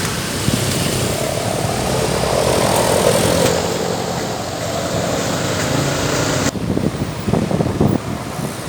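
Road traffic passing close by: engines and tyres of buses and trucks. One heavy vehicle's engine swells and fades about two to four seconds in.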